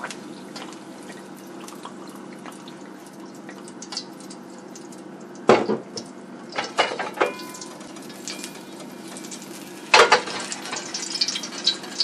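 Cooking oil heating in a steel wok, a low steady sizzle. There are a few sharp knocks against the pan about five and a half, seven and ten seconds in. After the last knock the oil crackles and spits with many small ticks.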